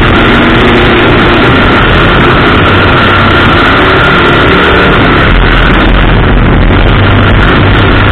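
Oval-track race car engine running hard under racing load, heard from a hood-mounted camera, loud and steady with dense rushing air and road noise over it.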